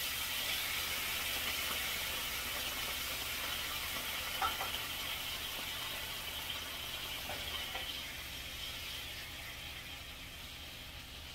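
Pan juices sizzling in a hot frying pan, a steady hiss that slowly fades, with a few light clinks about halfway through. The pan is running hot.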